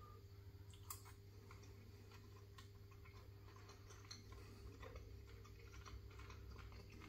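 Near silence: faint room hum with scattered soft clicks of quiet eating, one a little louder about a second in.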